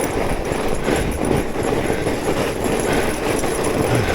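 Fat bike riding over rough, snowy trail: a steady crunch of the wide tyres with the bike rattling over the bumps.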